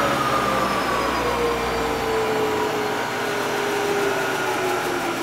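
Acra Mill vertical milling machine's spindle and head running, with a whine that slides slowly down in pitch as the spindle speed is turned down. A low hum under it drops away about two seconds in.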